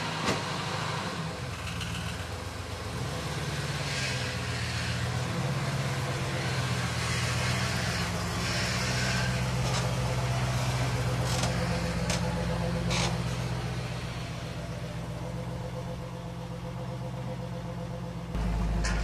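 A vehicle's engine idling with a steady low hum, with a few sharp clicks around the middle. A deeper low rumble comes in near the end.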